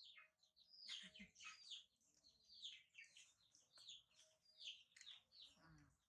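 Faint birds chirping: a steady run of short, high, downward-sliding chirps, several a second.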